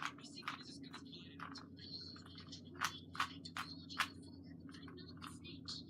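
Rubik's cube being twisted by hand, its plastic layers clicking as they turn, with a quick run of four sharper clicks in the middle, over a steady low hum.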